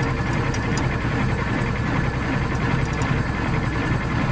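Tractor engine idling steadily, a low, even running sound without change.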